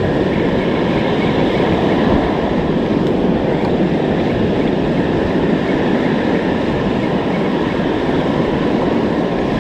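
Loud, steady rush of breaking surf and wind buffeting the microphone.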